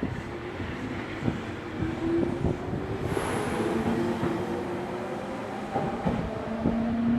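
Electric train running along the track, its wheels clicking over rail joints over a steady motor hum that shifts in pitch.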